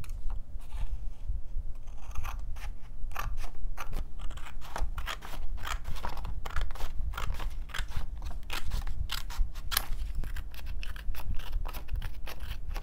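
Scissors cutting through a paper pamphlet, with many short snips in quick succession.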